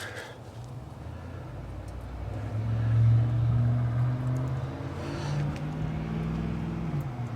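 A motor vehicle engine running, growing louder to a peak about three seconds in, its pitch stepping up later and falling away near the end.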